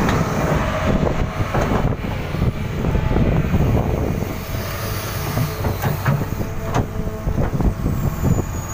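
Excavator engine running with a steady low drone and a faint hum, with irregular knocks and clanks throughout.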